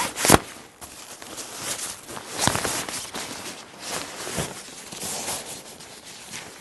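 Polyester tent fabric and its carry bag rustling and scraping as the bag is worked down over the folded pop-up tent, with two short louder bumps, one just after the start and one about two and a half seconds in.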